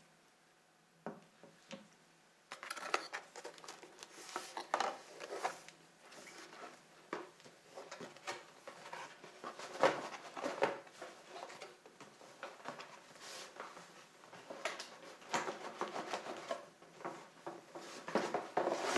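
Handling noise from unpacking a camera kit box: cardboard packaging being shifted, rustled and knocked in irregular bursts, starting a couple of seconds in.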